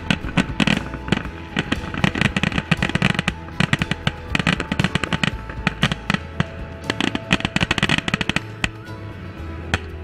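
Aerial fireworks bursting and crackling in quick succession. The crackle thins out about eight seconds in, and one sharp bang comes near the end. Music plays along underneath.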